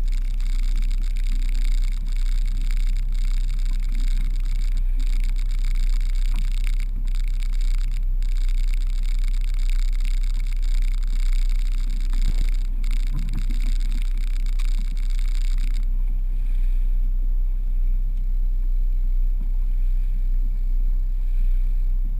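A small fishing boat's engine running steadily under way, an even low hum. A hiss above it fades about sixteen seconds in.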